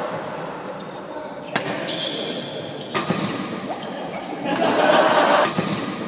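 Badminton rackets striking a shuttlecock in a doubles rally: several sharp cracks a second or so apart, over the chatter of spectators, which grows louder about four and a half seconds in.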